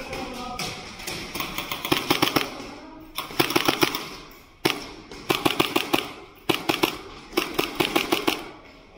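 Airsoft guns firing rapid full-auto bursts: about six short strings of fast clicking shots, starting about two seconds in.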